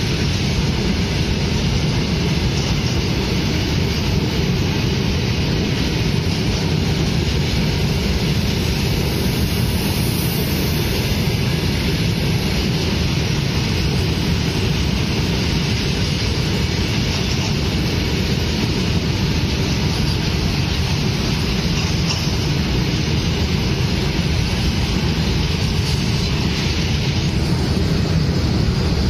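Freight train of open-top box wagons passing at speed: a steady, loud rumble of steel wheels rolling on the rails.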